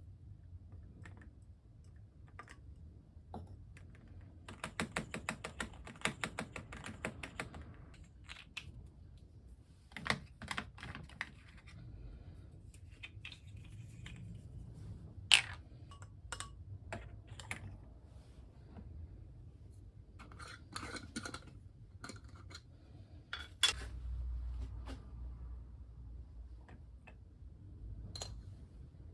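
Scattered small clicks and clatters of objects being handled, with a dense run of rapid ticking for about three seconds, starting about five seconds in, and a couple of sharper snaps later, over a low rumble.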